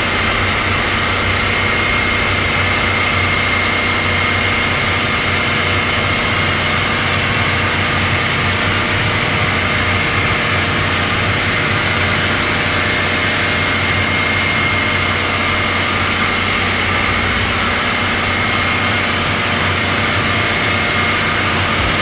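A machine running steadily: a loud, even hiss with a thin high whine and a low hum, unchanging throughout.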